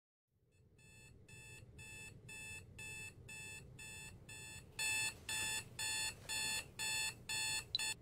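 Smartphone alarm beeping in short, evenly spaced pulses, about two a second, over a faint low hum. It grows louder, steps up about five seconds in, and stops near the end as the phone is tapped.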